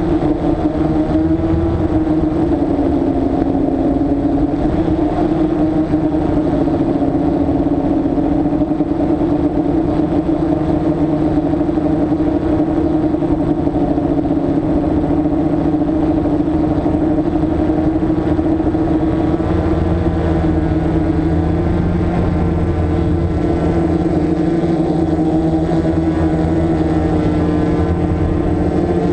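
DJI Flame Wheel F550 hexacopter's electric motors and propellers whirring in flight, heard close up from a camera mounted on the craft. The steady hum wavers a little in pitch, and a deeper hum joins about two-thirds of the way in.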